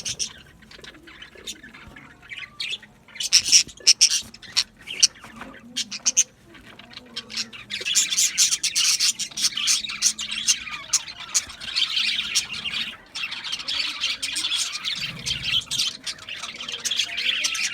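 Budgerigars chirping and squawking: scattered sharp calls at first, then, from about halfway in, a dense, continuous chattering warble from several birds.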